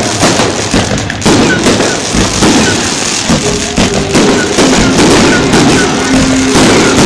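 Aerial firework shells bursting overhead in quick succession: a dense run of bangs and crackling.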